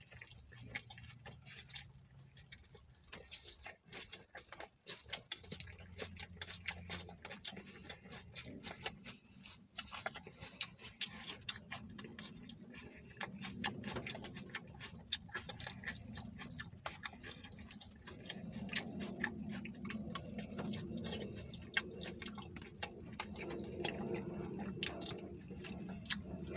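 A man chewing a mouthful of food with his mouth closed: irregular wet clicks and smacks of the mouth throughout, with a low hum of his voice growing from about halfway.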